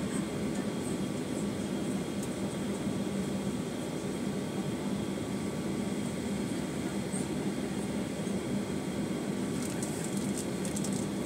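Steady cabin noise inside a Boeing 737-900ER taxiing at low speed: the CFM56 engines running at idle under a constant hiss of the air-conditioning, with a steady low hum. A few faint ticks near the end.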